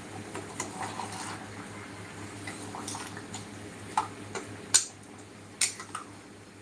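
Metal kitchen utensils clinking against a cooking pot: a few sharp clinks, the loudest a little under five seconds in, over a low steady hum.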